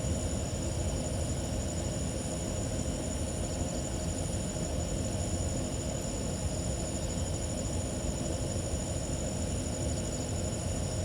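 Steady chirring of night insects, such as crickets, in high unbroken tones over a steady low rumble.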